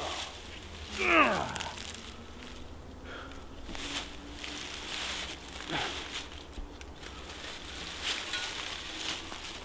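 Dry fallen leaves and twigs rustling and crunching as a person shifts, sits up and moves about on a leaf-covered forest floor. About a second in there is a short sound that drops quickly in pitch, the loudest moment.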